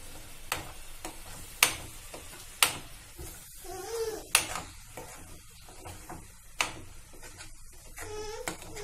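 Metal spoon knocking and scraping against a kadhai as frying masala is stirred: a few sharp knocks over a faint sizzle. A cat meows twice, about four seconds in and again near the end.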